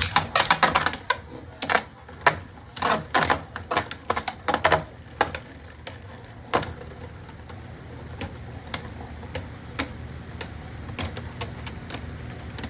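Two Beyblade Burst spinning tops battling in a plastic stadium: rapid sharp clicks and knocks as they collide and strike the stadium walls, dense for about the first five seconds and then sparser, over a steady low spinning whir.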